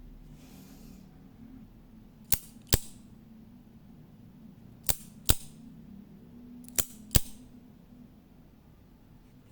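Small double-action OTF automatic knife with a zinc-aluminium alloy handle, its blade firing out and snapping back three times. Each cycle is a pair of sharp metallic snaps about half a second apart, and the second snap of each pair is the louder.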